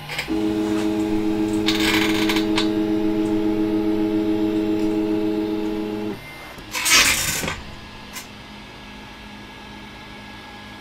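A 3D printer's stepper motors hum at a steady pitch, a chord of several tones, then stop suddenly about six seconds in. About a second later comes a brief, louder rustle, and a much fainter steady hum carries on.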